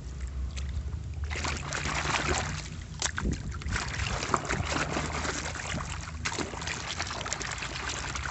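Water splashing and sloshing as a muddy plastic toy gun is swished hard back and forth in it by hand to rinse off the mud, starting about a second in.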